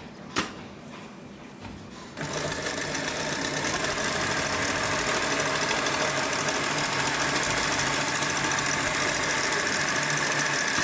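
Post-bed zigzag sewing machine for leather and shoes starting up about two seconds in and then sewing steadily at speed, with a rapid, even mechanical clatter. A single sharp click comes just before, early in the quiet stretch.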